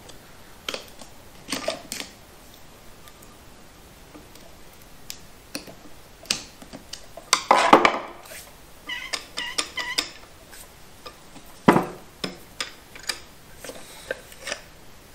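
Metal parts of a TH350 automatic transmission clinking and knocking as they are handled and worked apart on a steel-topped bench: scattered clicks and clanks, loudest about halfway through, with a brief metallic ring just after.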